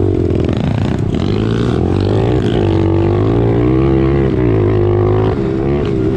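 Motorcycle engine revving up, holding a high wavering pitch for a few seconds, then easing off near the end.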